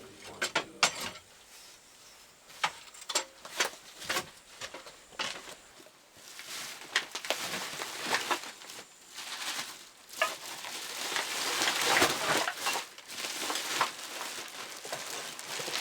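Irregular clicks and light knocks, like objects being handled, with a louder stretch of rustling and scraping about ten to thirteen seconds in.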